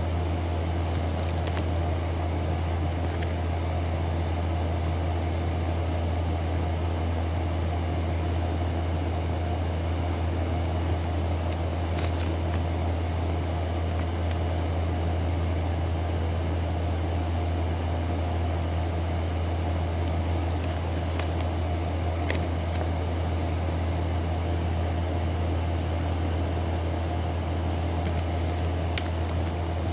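Steady low mechanical hum at an even level, with a few faint clicks and crinkles from plastic nail-sticker sheets being handled.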